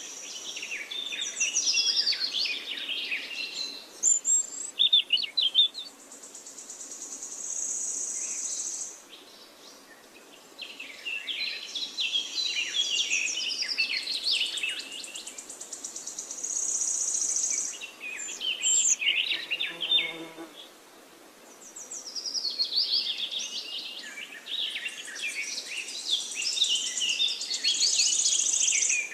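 Birds chirping and trilling in a busy chorus, coming in bursts of several seconds with short lulls between.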